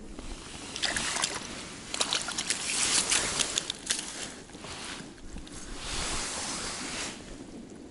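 Rustling and scraping with scattered small clicks as a roach is pulled out through an ice-fishing hole and handled on the ice, coming in two bouts of activity.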